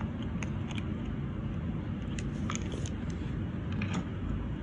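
Light, irregular clicks and taps of long fingernails on a small gel polish jar as it is handled and set down, over a steady low rumble.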